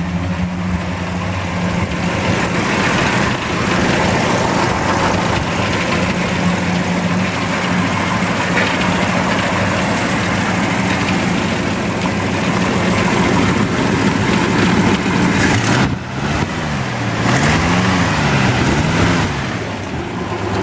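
Ford XW Falcon's 3.6 litre straight-six idling steadily, then revved up and down three times near the end. The owner calls the engine fairly tired, a little rumbly in the bearings.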